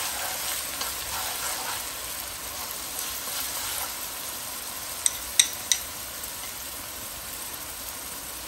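Minced garlic sizzling in hot oil in a wok, stirred with chopsticks, a steady hiss as it fries toward golden and crisp. Three sharp clicks come a little over five seconds in.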